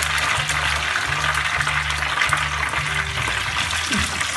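Battered zucchini flowers deep-frying in hot oil: a steady sizzle while a slotted skimmer and tongs work in the pan to lift them out.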